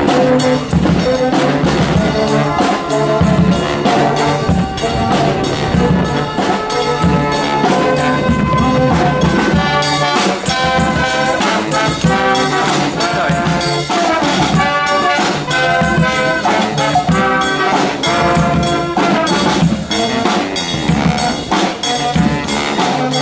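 Street brass band playing live: trumpets, trombones and a sousaphone over snare and bass drums, with a steady beat.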